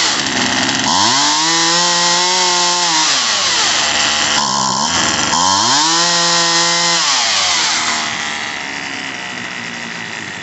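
Poulan Wild Thing 2375 LE two-stroke chainsaw engine revved to full throttle twice, each rev held about two seconds before dropping back, then settling to idle near the end. The carburetor's high-speed mixture screw has just been turned counterclockwise to cure a bog at full throttle. The tank is nearly empty, and the owner thinks the engine is sucking air.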